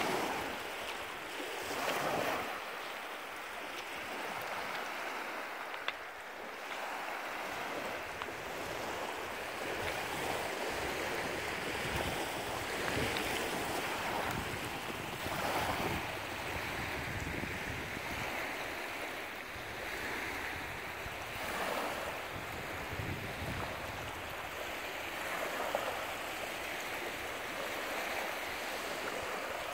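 Small lake waves lapping and washing up onto a gravel and pebble beach in repeated surges, with wind rumbling on the microphone.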